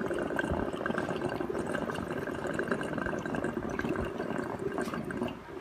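Water bubbling steadily through a glass recycler bong's honeycomb percolator as air is drawn through it; the bubbling stops shortly before the end.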